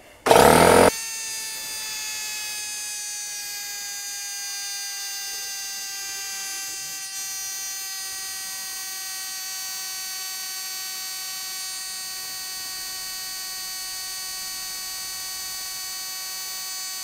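Craftsman CMEC6150 6-gallon pancake air compressor starting up with a brief loud burst, then its oil-free pump running with a steady humming whine while filling the tank toward its 150 PSI cut-off; the pitch sinks slowly as it runs.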